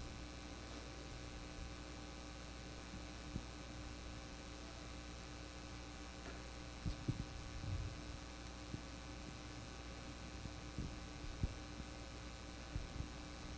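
Steady electrical mains hum, with a few faint knocks in the second half.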